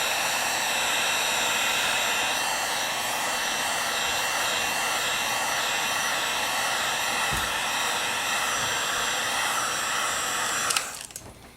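A handheld hot-air blower runs steadily with a whine, drying a freshly applied coat of leather dye. It switches off shortly before the end.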